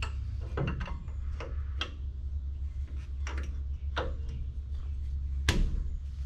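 Light metal clicks and clinks of brake pads and a spring-steel retainer being worked by hand into a truck's front disc-brake caliper: scattered single ticks, the loudest about five and a half seconds in, over a steady low hum.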